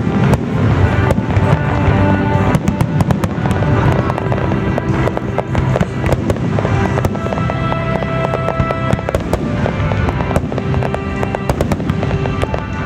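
A fireworks barrage: many shells bursting in rapid succession, bangs and crackles overlapping with no break, while music plays at the same time.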